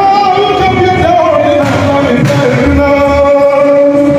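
Music with a man singing long held notes.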